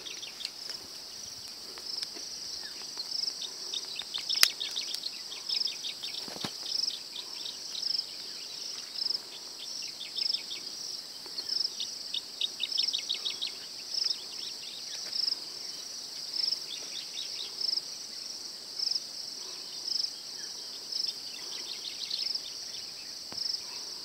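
Insects chirring: a steady high buzz with a regular pulse, joined every few seconds by bursts of rapid ticking calls. A single sharp click about four seconds in.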